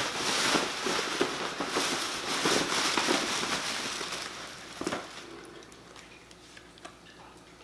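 Tissue paper rustling and crinkling as it is pulled out of a gift bag, dense for about four and a half seconds. A brief knock comes near five seconds, then only faint rustling.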